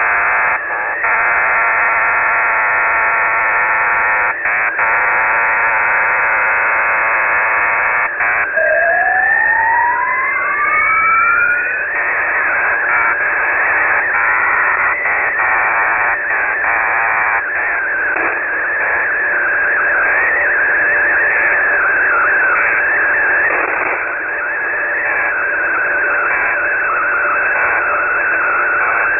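Shortwave receiver audio of an unidentified signal on 3591.40 kHz, over static. It opens with several steady data tones at once with brief dropouts. About eight seconds in come two parallel rising tone sweeps lasting about three seconds, and then a single wavering, drifting tone.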